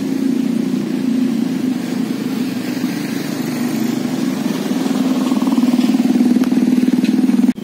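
A small engine running steadily at a constant speed, close and loud, with an even pulsing drone.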